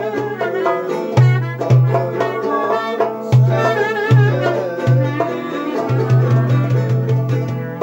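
Turkish folk tune played live on clarinet and bağlama, the clarinet carrying a wavering melody over low, regular drum beats. About six seconds in the drum strikes come in a quick run.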